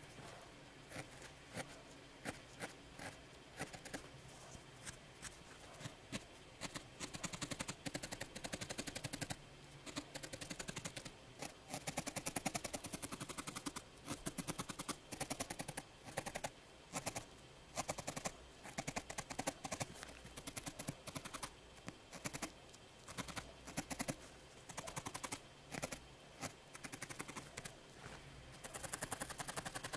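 Felting needle jabbing repeatedly into a ball of wool, a string of quick sharp pokes coming in fast runs of several a second broken by short pauses.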